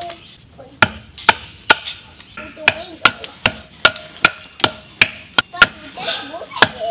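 Repeated sharp chops of a hatchet-type blade biting down the side of an upright pine log as it is hewn into a spoon blank, about two to three strokes a second, starting after a short pause.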